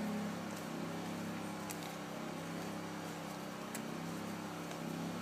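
Faint steady low background hum, with a few light clicks from hand tools being handled around the carburetor.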